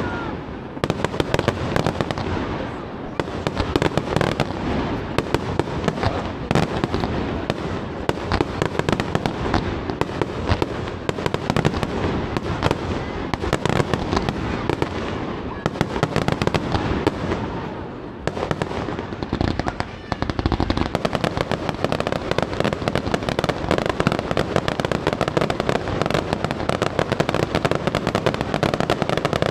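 Aerial fireworks display: a dense, near-continuous run of bangs and crackles from bursting shells. It eases briefly about three seconds in and again around eighteen to twenty seconds.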